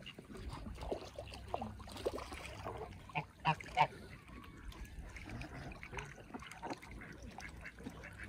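Domestic waterfowl (geese and ducks) calling: a run of short honking calls, the two loudest close together about three and a half seconds in.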